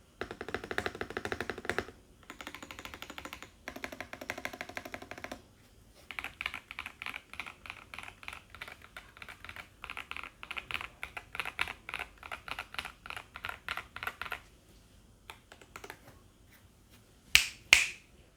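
Keystrokes on an Everglide SK68 gasket-mount mechanical keyboard with KTT Cabbage Tofu switches, an aluminium plate and PBT keycaps: three quick bursts of rapid typing, then single keys pressed at about four to six a second, slowing to a few lone presses. A louder short knock near the end.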